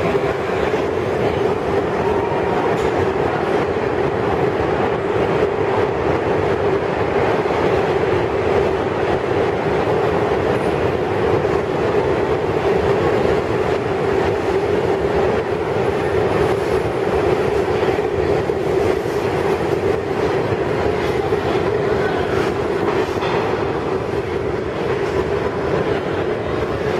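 R46 New York City subway train pulling out of the underground station and running along the platform. It makes a steady, loud rumble with a constant drone, easing a little near the end as the last car pulls away.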